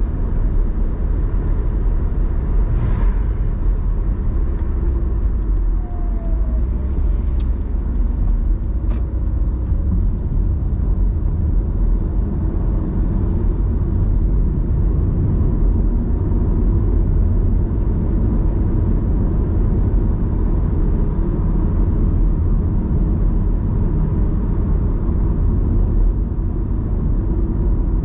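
Car driving steadily on a paved road, heard from inside the cabin: an even low rumble of tyres and engine, with a few faint ticks in the first half.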